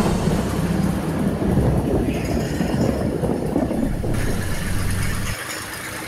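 Tractor diesel engine running steadily close by. The sound drops off abruptly a little past five seconds in.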